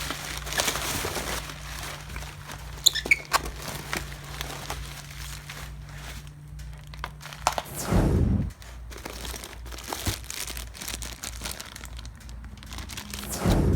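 Packaging crinkling and rustling as parts are handled and unwrapped, with scattered clicks and two dull bumps, one about eight seconds in and one near the end.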